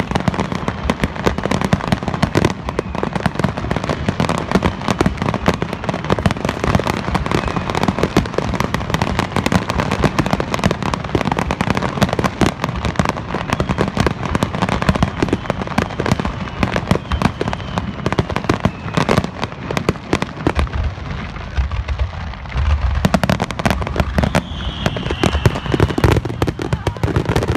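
Fireworks display: a dense, continuous barrage of bangs and crackles, with heavier low booms about two-thirds of the way through and a brief whistle near the end.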